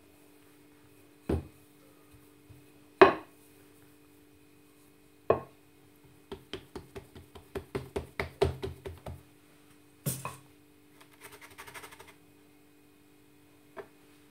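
Wooden rolling pin knocking on a bamboo cutting board as chickpea-flour dough is rolled out, a few separate knocks with the loudest about three seconds in. Around the middle comes a quick run of light taps for about three seconds, then another knock, a short rustle and a small tap near the end.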